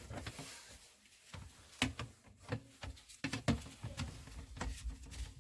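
A string of irregular knocks and clicks over a low rumble, loudest about two seconds in and again about three and a half seconds in.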